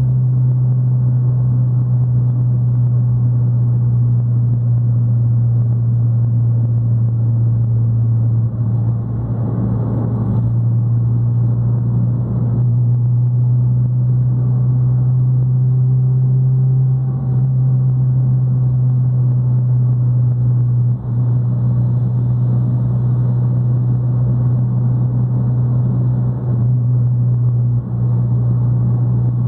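Fiat Palio's exhaust droning at highway cruise, a steady low note at constant pitch. About nine seconds in there is a brief noisy whoosh.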